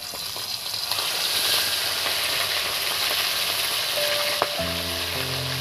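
Bhola fish frying in smoking-hot mustard oil in an iron kadai: a loud, steady sizzle that swells over the first second as the whole fish goes into the oil.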